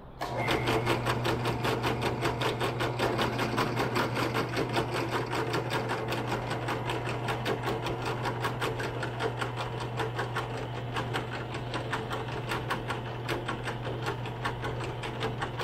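Benchtop drill press running and drilling a hole through a metal tube held in a wooden block: a steady motor hum with a fast, regular ticking from the bit cutting.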